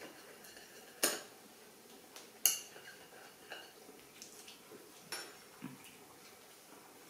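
A handful of sharp clicks of an eating utensil against a dish, the two loudest about a second and two and a half seconds in, with fainter taps later.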